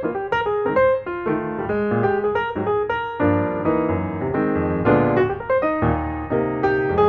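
Piano music: a continuous flow of notes and chords, several notes a second.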